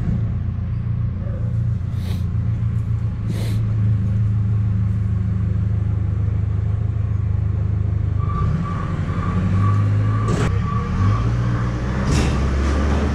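A heavy motor starts up and runs with a loud, steady low rumble. A few short clanks come through it, about two and three and a half seconds in and again near the end, and a high steady whine joins about eight seconds in.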